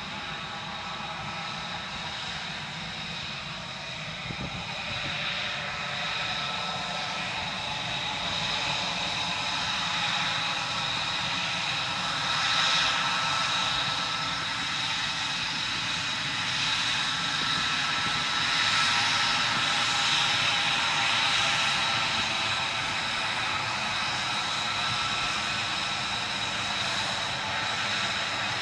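F-35 jet fighter's engine running, a steady high whine over a broad rush of noise. It grows gradually louder toward the middle, then eases slightly near the end.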